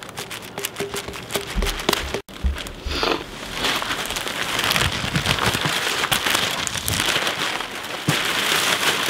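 Black plastic garbage bag rustling and crinkling as it is handled and pulled over an engine, growing denser and louder about a third of the way in.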